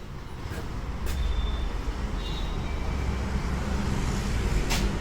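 Low, steady rumble of a motor vehicle that grows louder about a second in, with a few sharp clicks over it.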